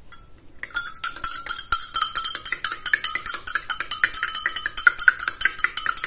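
A metal stirring rod clinks rapidly against the inside of a glass beaker, stirring drops of lactic acid into the liquid. Each strike rings with a bright glassy tone. It starts under a second in and goes on at about seven strikes a second.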